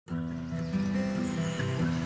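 Background music with held instrumental notes that change pitch every so often.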